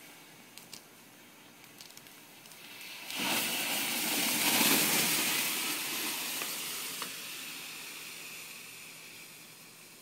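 Homemade bamboo-tube firework with a sugar and oxidizer fuel burning: a steady hiss with a few small crackles, then about three seconds in it flares into a loud rushing hiss that slowly dies away, with one sharp pop partway through.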